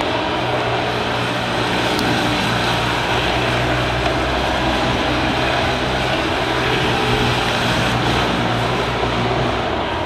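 Small motorcycle engine running steadily at speed as it paces a track sprint, a constant drone over an even rush of noise.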